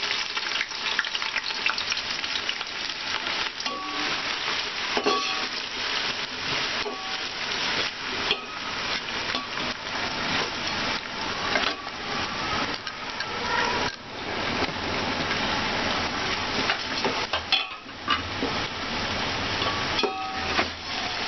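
Sliced onions sizzling as they fry in hot oil, with a perforated steel skimmer stirring them and scraping against the side of the metal pot, giving brief squeaks now and then.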